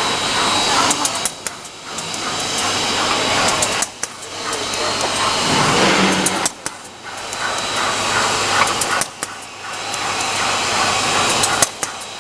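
Pull-up diaper making machine running: a steady mechanical din with a low hum, a thin high whine and scattered sharp ticks, the noise dipping briefly every two to three seconds.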